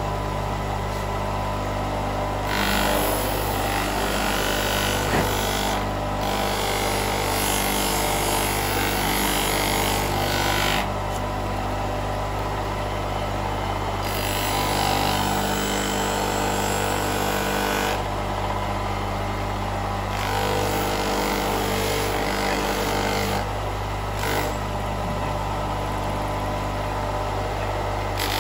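Electric motor spinning a buffing wheel with a steady hum, while an aluminium motorcycle footstep is pressed against the wheel for polishing in about five spells of several seconds, each adding a rushing hiss.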